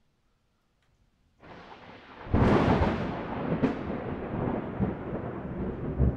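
Thunder: after a moment of quiet, a rumble builds and breaks into a loud crack a little over two seconds in, with a second sharp crack about a second later, then rolls on as a long rumble.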